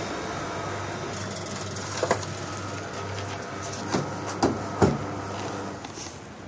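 Steady hum of laboratory equipment with several clunks and clicks of a −80 °C lab freezer's door and latch being handled, the loudest a little before the five-second mark. The hum falls away near the end.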